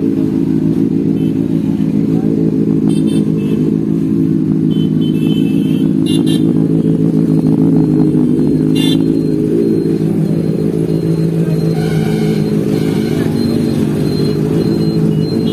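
Benelli TNT 600i motorcycle's inline-four engine idling steadily, close up.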